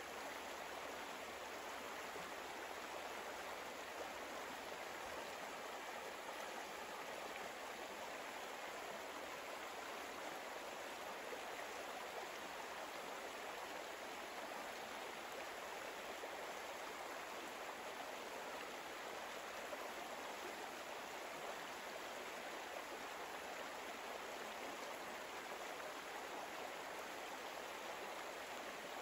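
Steady, soft rushing noise like flowing water, even and unbroken.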